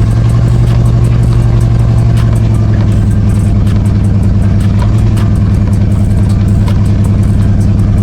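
A loud engine running steadily at high revs, its pitch holding level throughout.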